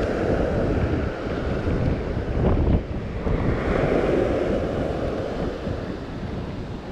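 Surf washing on the beach with wind buffeting the microphone, the wash swelling twice, with a brief louder buffet a little before the middle.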